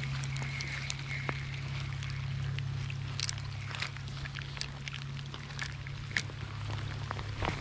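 Light rain on a creek: scattered, irregular drop ticks over a steady low rumble.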